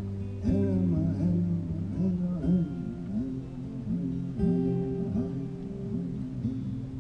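Live music of a song's opening bars before the lyrics: guitar over a held low drone, with pitched notes sliding up and down.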